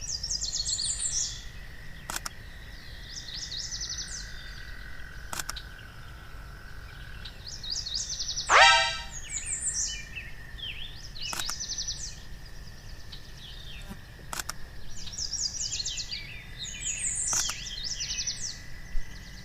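Songbirds singing in repeated high twittering phrases, with one louder call about eight and a half seconds in. A faint steady high whine and a few sharp clicks lie underneath.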